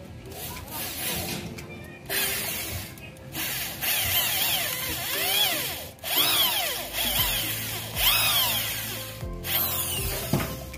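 Corded electric drill boring holes into a wooden strip. It runs in several bursts, its pitch rising and falling as it speeds up and slows down.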